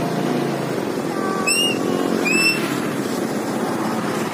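Diesel engine of a heavy road-repair machine running steadily close by. Two short, high rising squeaks or whistles sound about a second and a half in and again just after two seconds.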